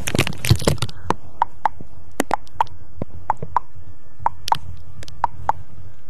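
Soft, sharp clicks or taps close to the microphone, unevenly spaced at about two to four a second, over a low steady hum.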